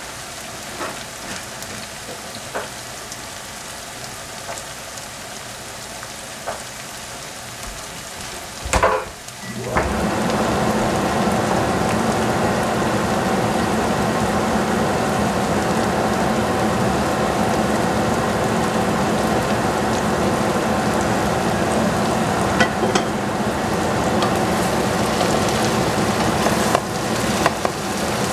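Sliced onions sizzling in oil in a nonstick frying pan, a steady frying hiss with small pops. About nine seconds in there is a loud knock, after which a louder steady noise with a faint hum carries on, and a few clicks come near the end as the onions are stirred.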